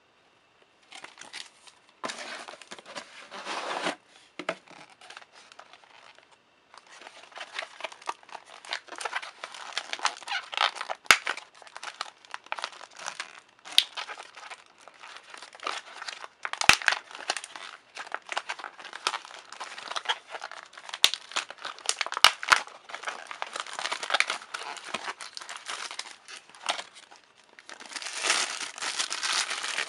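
Thin plastic bag crinkling as hands pull it off a camera lens, in bouts of handling with a quieter lull a few seconds in and the loudest crinkling near the end. A few sharp clicks stand out along the way.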